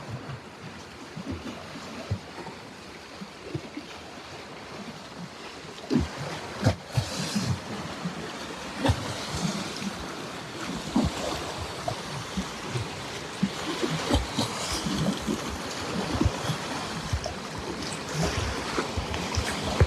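Small lake waves lapping and splashing against shoreline steps in irregular slaps, getting louder and busier about six seconds in.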